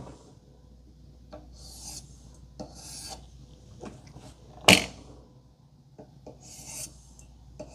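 Edge of a Leatherman Ukiah hunting knife drawn along a wooden stick in about three short rasping strokes, stripping the last of the burr after sharpening. A single sharp knock about halfway through is the loudest sound.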